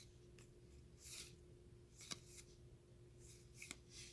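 Faint rustle and a few soft clicks of trading cards being handled and flipped through, over a low steady hum.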